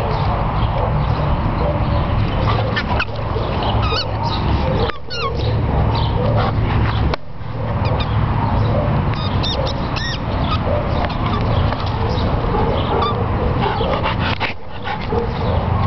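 A dog's red rubber squeaky bone toy squeaks in a few short, wavering bursts as the pit bull carries and mouths it, over a steady low rumble of wind on the microphone.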